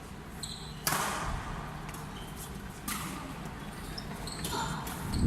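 Badminton rackets striking the shuttlecock, two sharp hits about two seconds apart that echo in a large hall, with short high squeaks of shoes on the court between them.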